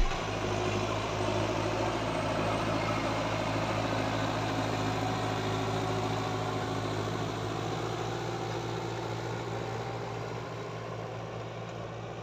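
John Deere 5100R tractor's four-cylinder diesel engine running steadily under load while pulling a reversible plough through the soil, growing fainter toward the end as it draws away.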